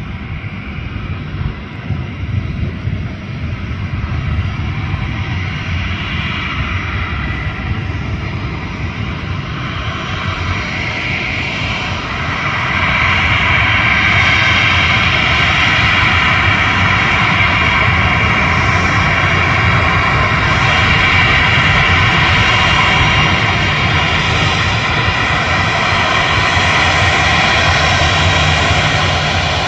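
Twin turboprop engines of a QantasLink Dash 8 taxiing, a steady propeller drone with a high turbine whine over it. It grows louder about twelve seconds in and stays loud.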